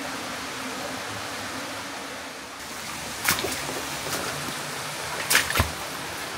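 Stream water rushing steadily through the cave. A few short, sharp sounds stand out over it, one about three seconds in and a louder pair near the end.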